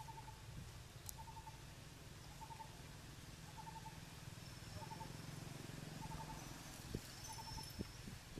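A bird calling in the background: a short, quick three-note call repeated about once a second, over a faint low rumble.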